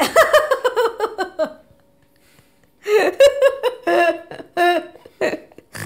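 A woman laughing in quick, falling-pitched bursts, pausing for about a second, then laughing again through the last few seconds.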